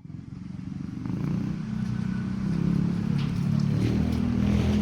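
An engine running steadily, growing louder over the first two seconds and then holding.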